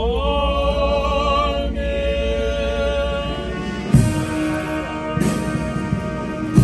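Clergy singing a sustained Orthodox chant response. About four seconds in, a band's funeral march takes over, with a heavy drum stroke roughly every second and a quarter.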